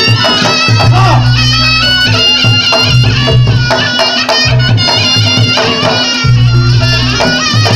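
Reog Ponorogo gamelan accompaniment: a shrill, reedy slompret (double-reed shawm) plays the melody over repeated low drum strokes and a steady low tone.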